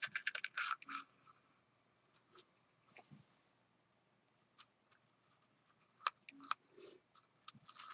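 Scattered light clicks and rustles of small rotary-tool accessories being handled, with a short run of them at the start and then single clicks every second or two.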